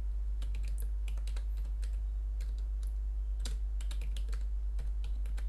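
Typing on a computer keyboard: irregular runs of keystroke clicks over a steady low hum.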